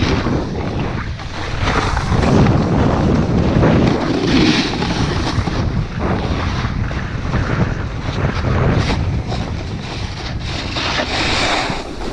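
Heavy wind buffeting the camera microphone, a continuous loud rushing noise that swells and eases.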